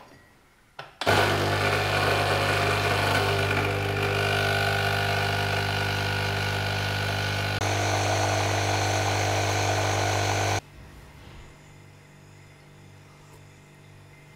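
Single-serve pod coffee machine brewing: a couple of clicks, then its pump runs with a loud, steady hum for about ten seconds as coffee pours from its twin spouts. The hum shifts slightly about two-thirds of the way through and then cuts off suddenly.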